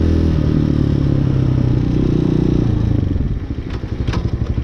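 Hawk 250 dual-sport motorcycle's single-cylinder four-stroke engine running steadily under throttle, then the throttle closes about three seconds in and it drops to a lower, even putter as the bike slows, with a couple of sharp clicks near the end. The valve lash has just been adjusted.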